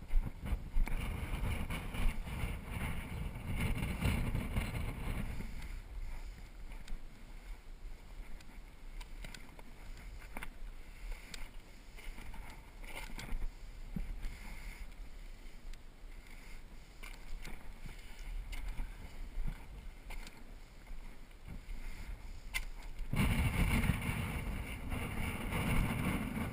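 Wind buffeting the microphone, a low rumbling hiss that comes in gusts: strong for the first five seconds, calmer in the middle with a few faint clicks, and strong again near the end.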